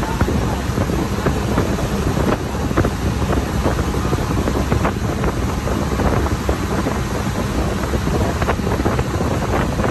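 Wind buffeting the microphone over a steady low rumble, with scattered small crackles throughout.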